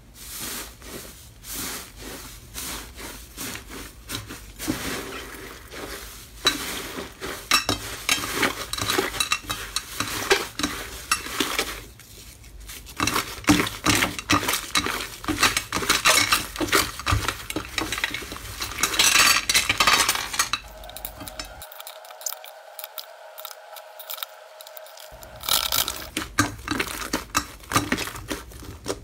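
Slime being squished and stirred by hand, giving dense wet crackling and clicking pops. It is loudest through the middle, and a few seconds of steady tone come in about two-thirds of the way through.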